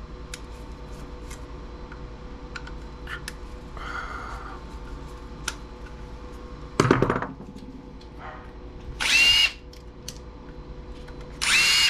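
Power drill-driver spinning in three short bursts, backing screws out of a small CRT TV's chassis, with light clicks of parts being handled in between.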